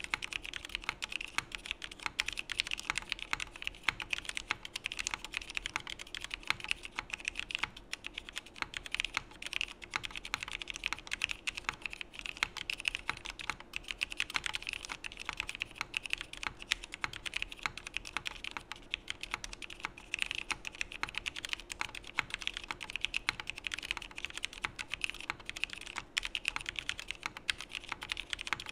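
Continuous steady typing on a mechanical keyboard: vintage Cherry MX Black linear switches (1990 'Old Blacks', stems lubed with Krytox 205g0) in a Geonworks Frog with an aluminium plate and no foam or dampening. Dense, unbroken key clacks and bottom-outs with no pauses.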